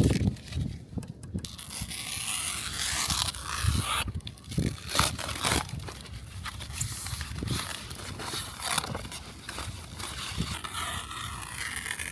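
Packing material being pulled off by hand: plastic wrap and padding crinkling and tearing, with scraping and a few low thumps.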